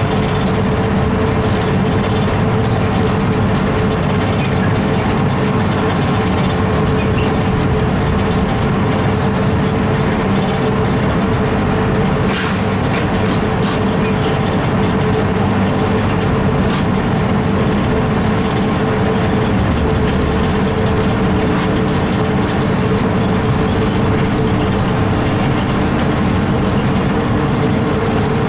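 Train running along the line, heard from the driver's cab: steady rumble of the wheels on the rails with a steady hum from the locomotive. A few sharp clicks come through about halfway.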